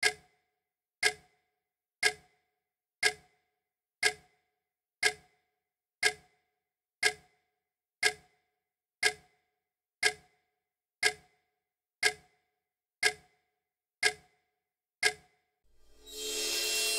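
A clock ticking once a second, about sixteen sharp ticks with silence between them. Near the end a swell of noise rises in.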